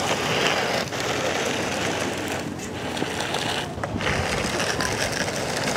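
Tonka Steel toy bulldozer pushed by hand through sand: its tracks rattle and the blade scrapes through the sand, in several pushes with brief pauses.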